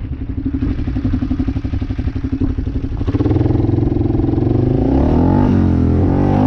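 ATV engine running at low revs, then revved up about three seconds in as the quad pulls away, its pitch climbing and dipping with the throttle.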